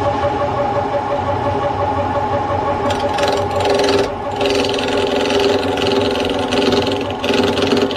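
Old Craftsman wood lathe running with a steady motor hum as a maple block spins. About three seconds in, a hand-held turning chisel starts cutting the wood, adding a rough hiss that comes and goes, with a brief break about a second later.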